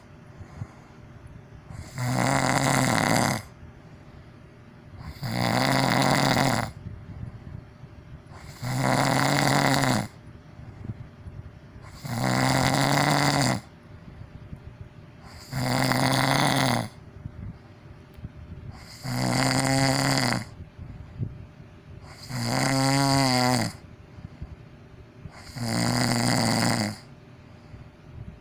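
A person snoring loudly, eight snores evenly spaced about three and a half seconds apart. Each snore is a steady low drone lasting about a second and a half, with faint breathing between. Two snores past the middle have a wavering, rattling quality.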